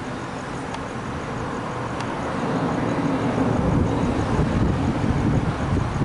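Road traffic: a car's engine and tyre noise, growing louder from about two seconds in and staying up.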